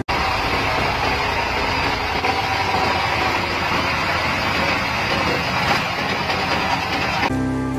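Small horizontal single-cylinder diesel engine running with a steady, dense clatter while a flat belt is levered onto its flywheel pulley. Background music comes back in near the end.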